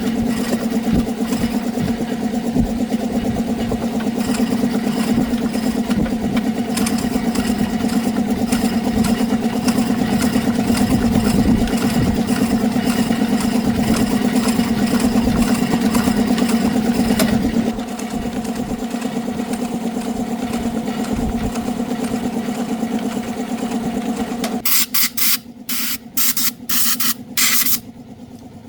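Motorbike engine idling steadily, easing a little about two-thirds of the way through, then cutting off near the end; a few short hissing bursts follow.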